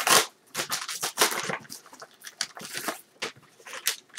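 Paper and packaging being handled while a mailed parcel is opened by hand: rustling, crinkling and tearing in quick, irregular bursts, the loudest right at the start.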